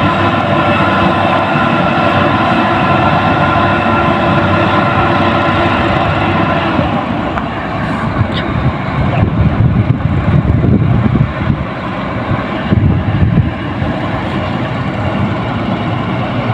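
Doosan excavator's diesel engine running with a steady whine over a low rumble. After about seven seconds the whine fades and an uneven low rumble takes over.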